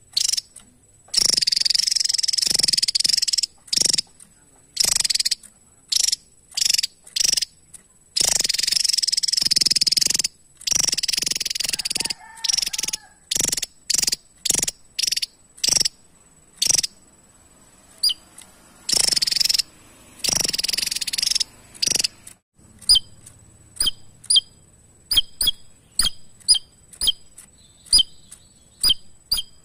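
Javan tesia singing: repeated bursts of high, rapid, buzzy chattering song lasting one to two seconds each, broken by short notes. About two-thirds of the way through it switches to a string of short, sharp call notes at about two a second.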